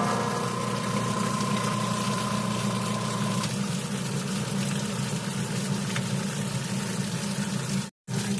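Machine-shop machinery running steadily with a constant hum and a wash of noise, the kind of sound made while a cylinder head is worked on. A thin high tone fades out a few seconds in, and the sound cuts out briefly near the end.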